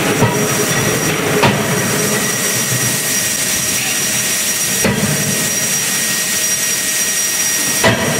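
A 31.5 kJ CNC hydraulic close die forging hammer strikes the hot workpiece in its die four times, at uneven intervals. Under the blows runs the loud, steady rush and whine of the hammer's hydraulic system.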